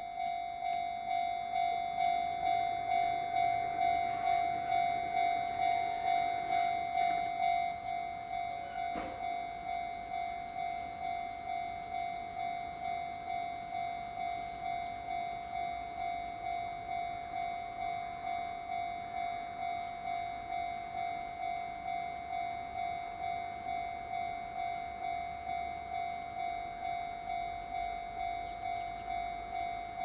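Japanese level-crossing warning bell ringing, a steady electronic ding repeating about twice a second. It starts suddenly and rings throughout. For the first several seconds it is louder, with a 211-series electric commuter train running through the crossing.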